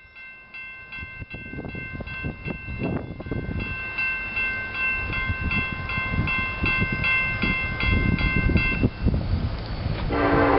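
Railroad grade-crossing bell ringing in even strikes, about three a second, stopping about nine seconds in, over a low rumble that grows steadily louder. A locomotive horn starts blowing near the end.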